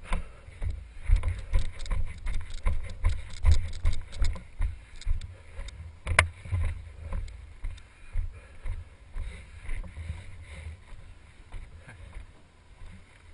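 Wind rumbling on a wearable camera's microphone, with irregular knocks and footsteps as the wearer walks; a sharper knock about six seconds in.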